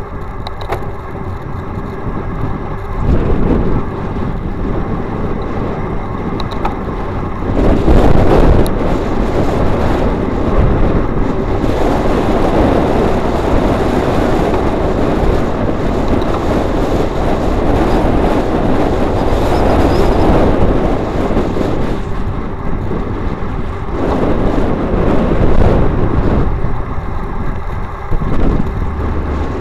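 Wind and road noise on a road bicycle's action camera at riding speed. It swells loudly several times as motor vehicles pass, the loudest about eight seconds in.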